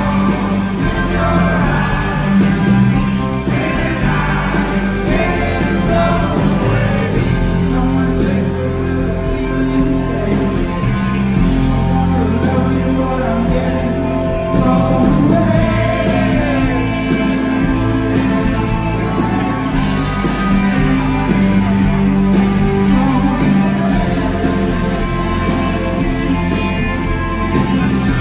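Live rock band playing loud, with electric guitars and singing, heard from within the audience in a large hall.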